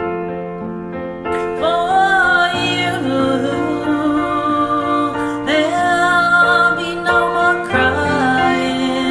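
A woman singing a slow ballad over a karaoke backing track of piano and keyboard, her voice coming in about a second in and held in long phrases with vibrato.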